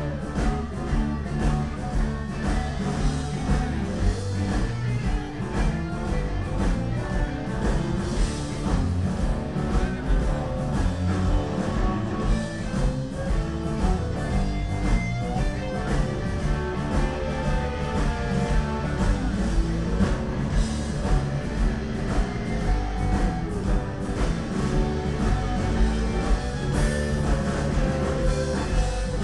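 Live band playing amplified electric guitars and bass over a steady beat.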